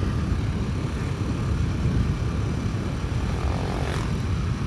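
Riding a Honda Grand Astrea motorcycle: the steady drone of its small four-stroke single-cylinder engine under way, mixed with a low, uneven wind rumble on the microphone.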